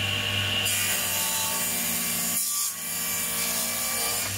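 Table saw running with its blade tilted for a bevel, cutting along the edge of a narrow plywood strip. Over the steady motor hum, the cutting noise comes in about a second in, dips briefly around halfway, and carries on until near the end.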